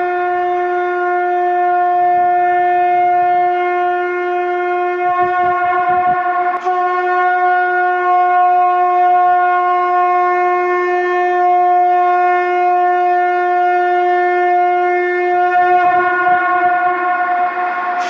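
Conch shell (shankh) blown in long, steady blasts on a single pitch, rich in overtones. One blast breaks off about six and a half seconds in and the next starts at once, with a rush of breath noise around each break.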